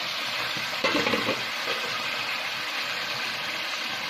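Chicken pieces frying in hot oil in an aluminium pressure-cooker pot, just after chopped garlic, ginger and green chillies went in: a steady sizzle. A brief louder sound comes about a second in.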